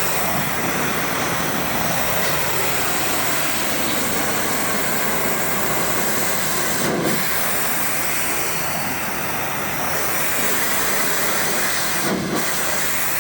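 Pressure washer spraying water in a steady hiss over a board fence, cutting out briefly twice, about seven and twelve seconds in.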